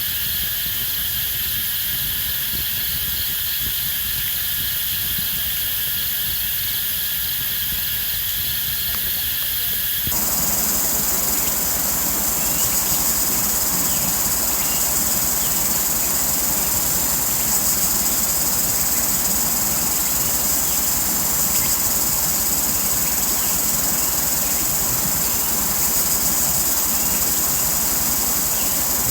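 Steady chorus of forest insects, a continuous high-pitched chirring. About ten seconds in it switches abruptly to a higher-pitched chorus with more hiss underneath.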